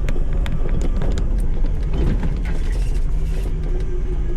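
Off-road vehicle's engine running steadily as it drives over a rough trail, with frequent short clicks and knocks from the vehicle rattling over bumps.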